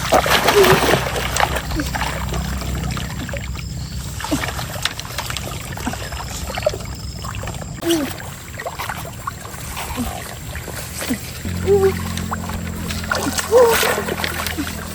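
Stream water splashing and sloshing, with louder bursts of splashing at the start and again near the end.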